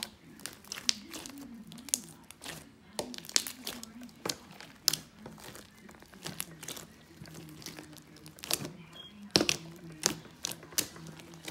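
Hands squishing, squeezing and pulling apart a thick, foamy popcorn slime, giving irregular crackling and popping clicks, a few of them louder snaps.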